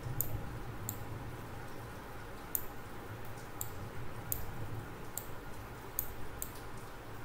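Computer mouse clicking: about ten short, sharp clicks at irregular spacing, over a faint steady low hum.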